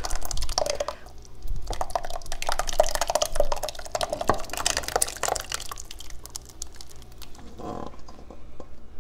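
Thick, creamy clam chowder poured from a pot into a slow cooker's stoneware crock, splashing and splattering. The pour gets thinner and quieter after about five seconds.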